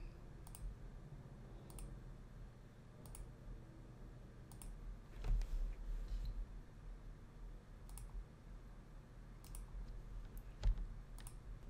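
Scattered single clicks of a computer mouse and keyboard, about one every second or so, over a low steady hum.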